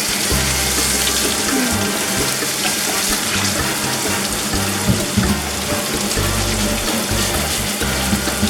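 Kitchen tap running steadily, water splashing as a greasy range hood part is rinsed, with background music underneath.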